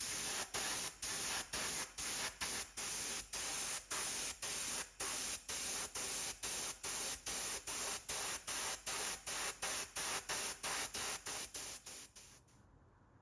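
Spray hissing in quick repeated bursts, about three a second, with short breaks between them, stopping shortly before the end.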